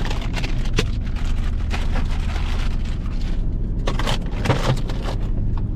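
Plastic grocery packaging rustling and crinkling, with a few sharp knocks as items are handled, over a steady low drone.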